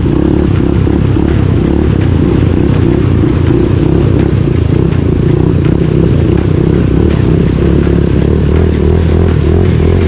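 Dirt bike engine running at a steady throttle while riding through a shallow river, with water splashing off the front wheel.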